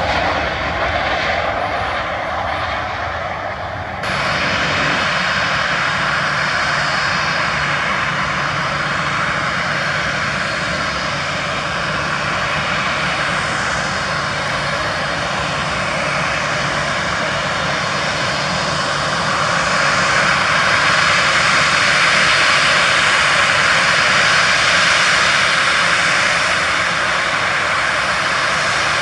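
Boeing 737-800's CFM56-7B turbofan engines on a jet rolling out on the runway after landing. About four seconds in the sound changes abruptly to the engines' steady whine and hiss at low taxi power as the jet taxis toward the listener, growing somewhat louder from about twenty seconds in.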